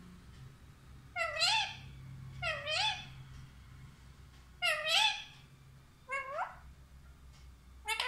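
Rose-ringed (Indian ringneck) parakeet calling: five short calls spaced one to two seconds apart, each dipping then rising in pitch.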